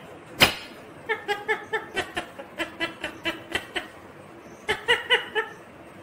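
Indian ringneck parakeet chattering in a fast run of short, laugh-like pitched notes, several a second, then a few more calls near the end, with one sharp click about half a second in.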